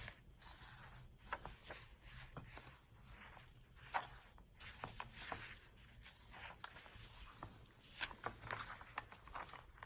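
Faint paper rustling and light clicks as pages and inserts of a handmade paper journal are handled and turned, with one sharper rustle about four seconds in.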